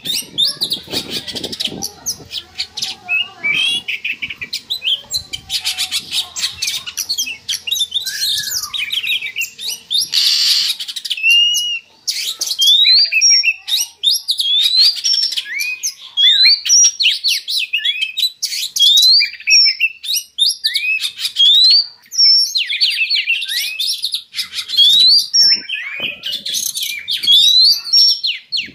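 Oriental magpie-robin (kacer) in breeding condition, calling loudly: for about the first twelve seconds a harsh, scratchy chatter, then a run of clear whistled notes sweeping up and down in quick phrases. It is the excited mating song that keepers use as a lure to bring a kacer into breeding condition.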